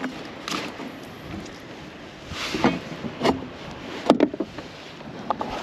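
Scattered knocks, clicks and a brief rustle of gear being handled aboard a plastic kayak, with the loudest knock about four seconds in.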